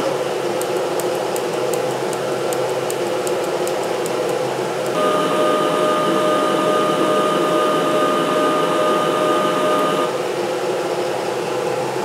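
Sherman tank sound effects played through an Armortek model-tank sound module's speaker: a steady engine-running noise, with a steady whine that joins it about five seconds in and stops about five seconds later.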